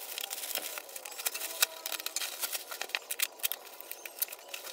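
Scissors snipping through a plastic courier mailer bag, then the plastic and bubble wrap crinkling and rustling as it is handled: a run of irregular sharp crackles.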